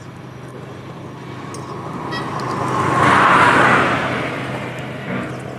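A road vehicle passing by: its noise swells to a peak about three and a half seconds in, then fades, over a low steady hum.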